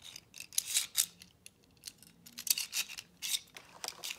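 Scattered light clicks and rustles of something being handled, in two clusters about a second apart.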